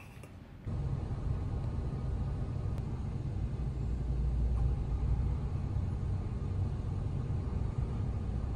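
Car engine idling, a steady low rumble heard from inside the cabin, starting suddenly about a second in.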